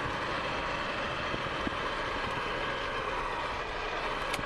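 Volvo 240 heard from inside the cabin while driving off: steady engine and road noise, with a light click near the end.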